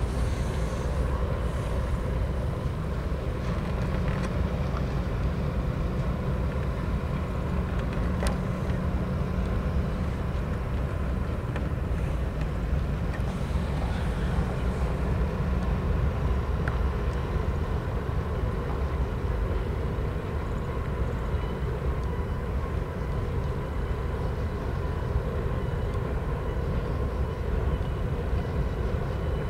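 Freight train crossing a trestle bridge. Three diesel locomotives pass with a steady engine drone that fades about halfway through, leaving the steady rumble of the freight cars rolling over the bridge, with a few faint clicks.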